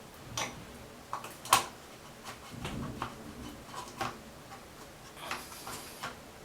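Scattered light clicks and knocks of shower faucet trim parts being handled and fitted back on, the sharpest one about one and a half seconds in.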